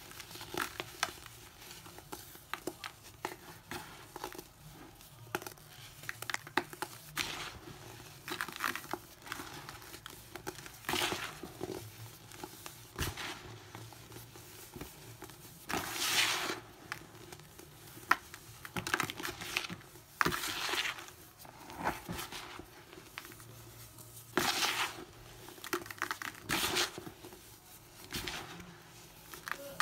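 Hands squeezing and crumbling packed baking soda that has been left to dry too long and is hard to break apart. It gives irregular crunches and crumbling, some lasting about a second, and the louder ones come in the second half.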